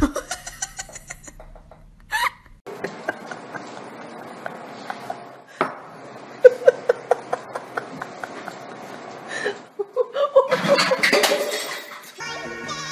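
A sharp clatter at the start, then scattered knocks and clicks, and a person laughing in short repeated bursts, loudest about ten to twelve seconds in.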